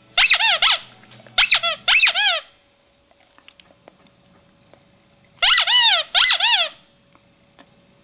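Rubber squeaky toy squeezed by hand, giving loud pitched squeaks: four in quick pairs, a pause, then two more.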